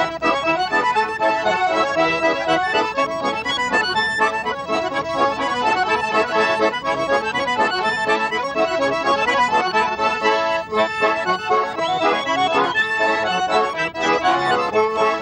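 Several garmons, small Russian-style button accordions, played together in a folk tune with quick, busy runs of notes.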